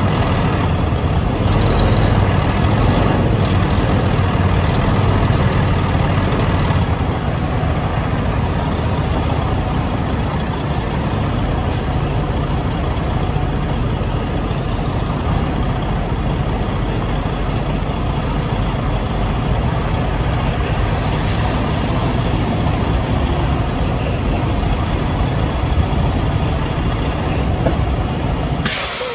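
Semi truck's diesel engine running steadily at low speed as the truck backs into a parking space, heard from inside the cab with the window down. A short, loud hiss of air comes near the end.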